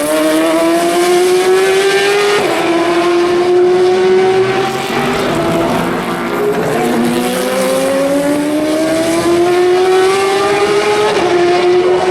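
Race car engines accelerating hard. The engine note climbs steadily and drops abruptly at each upshift, here about three seconds in and again near the end, with a second car's rising note overlapping in the middle.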